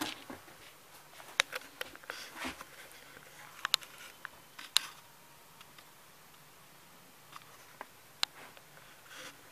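Scattered sharp clicks and short rustles at irregular intervals over a low room hiss: handling noise from hands and the camera moving over the motor housing and its steel mounting base.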